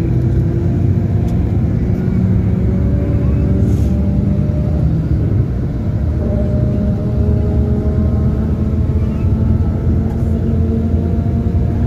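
Intercity bus engine and road noise heard from inside the passenger cabin while the bus drives along: a steady low drone, with the engine's pitch slowly drifting up and down.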